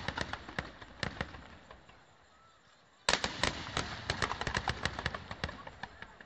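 Fireworks salvo: a rapid string of sharp bangs from many shells bursting along a wide firing line, thinning out and fading. A second salvo of bangs breaks out about three seconds in and trails off again.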